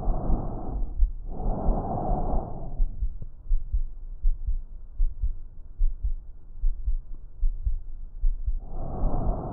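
Bronchial breath sounds heard through a stethoscope: a rush of air like air through a tube on the in-breath, then a longer one on the out-breath after a short gap, a long pause, and the next breath beginning near the end. Regular heartbeat thuds sound underneath.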